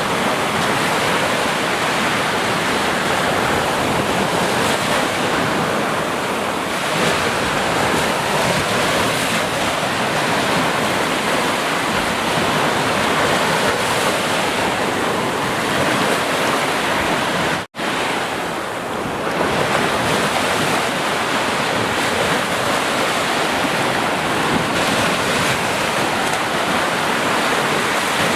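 Sea surf washing steadily, a continuous rushing wash of waves. The sound cuts out for an instant about two-thirds of the way through, then carries on.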